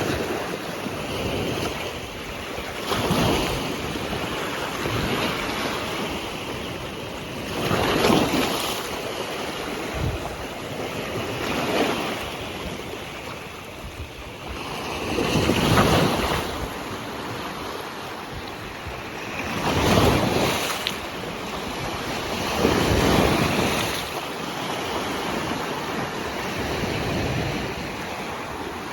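Sea waves washing in at the shore, a surge of water about every four seconds over a steady wash.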